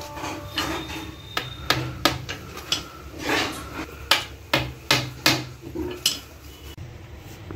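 Hammer driving nails into the mitred corner of a wooden picture frame: a series of sharp, irregularly spaced strikes.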